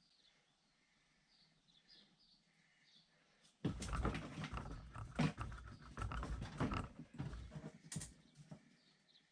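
Ready-mixed antifreeze glugging in irregular gulps as it is poured from a container into the cooling system, starting after a few quiet seconds.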